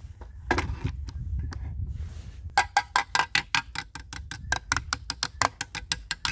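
Mechanism of a metal-and-plastic toy cap-gun hunting rifle being handled: a sharp click about half a second in, then a quick run of about twenty sharp clicks, about five or six a second, from about halfway through.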